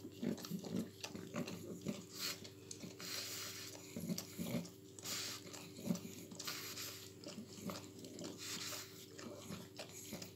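Mother pug licking her ten-day-old puppies: irregular wet licks and smacking sounds.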